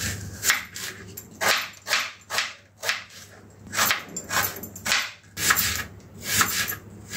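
Kitchen knife slicing red onions on a wooden chopping board: about a dozen short cuts at an uneven pace, with a pause of about a second near the middle.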